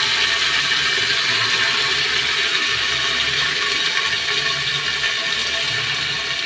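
Soaked, washed rice sizzling in hot oil with cumin seeds in an aluminium pressure cooker as it is stirred with a spatula; a steady hiss that eases slightly toward the end.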